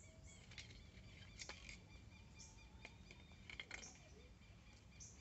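Faint birds chirping now and then, in short high calls, with a few light clicks over near silence.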